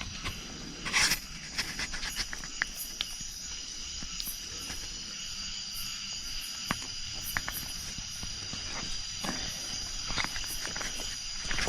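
Insects chirring steadily in a high, even drone, with scattered small ticks and rustles and one louder rustle about a second in.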